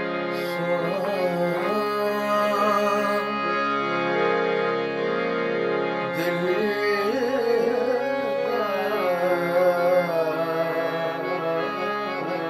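A man singing a Punjabi folk song in long, ornamented phrases, accompanying himself on a harmonium that holds steady chords under the voice. The voice drops out for a couple of seconds near the middle while the harmonium plays on alone.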